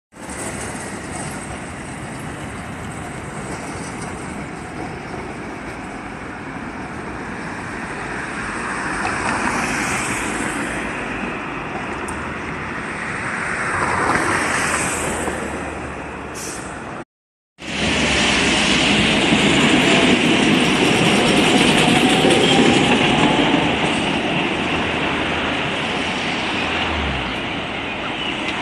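Street traffic beside a tram line: cars and scooters passing, some swelling and fading, with trams running on the rails. The sound breaks off for half a second about 17 seconds in and returns louder, with a faint rising whine.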